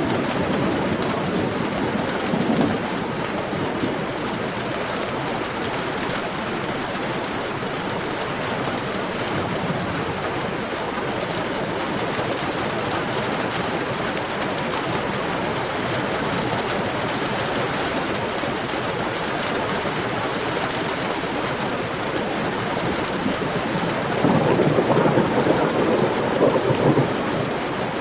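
Heavy rain falling steadily, with a low rumble of thunder swelling up near the end.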